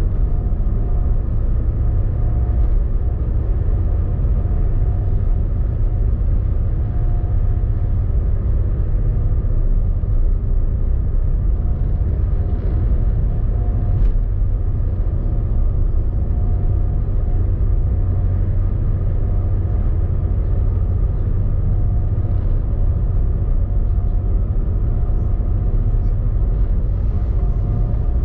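A vehicle's engine running steadily: a constant low rumble with an even hum over it.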